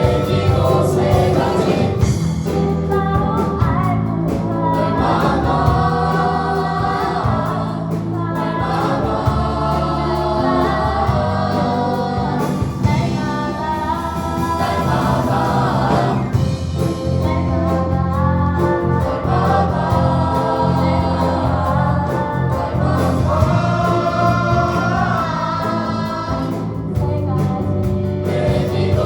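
A choir singing a gospel praise song over instrumental accompaniment with held bass notes.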